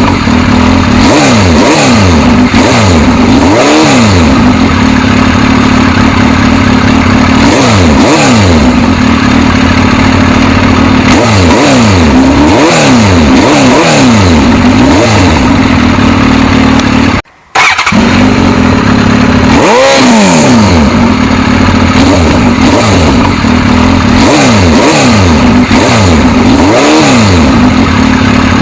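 Suzuki GSX-S1000's inline-four engine revved in repeated short blips over a steady idle, each blip rising and falling back in pitch. The sound breaks off briefly a little past the middle.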